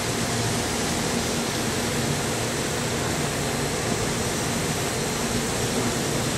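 Steady droning hum and hiss of machinery on a lift barge's deck, level and unbroken, with a faint low hum running through it.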